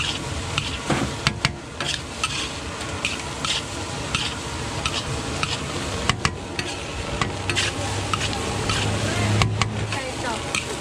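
Nasi goreng sizzling in a large wok while a spatula stirs and tosses it, with frequent sharp scrapes and clinks of the spatula against the pan.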